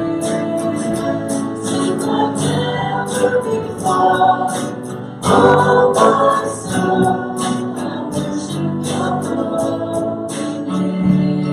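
Church congregation singing a worship song to instrumental accompaniment, voices holding notes that change every second or so.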